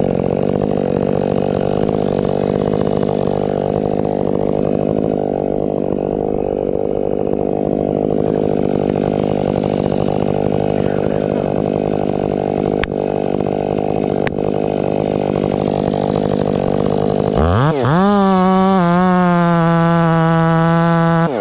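Stihl MS 500i fuel-injected two-stroke chainsaw running steadily under load, cutting through a ponderosa pine to finish the back cut, with two sharp clicks partway through. Near the end the engine note climbs sharply to a higher, wavering full-throttle pitch as the saw runs free.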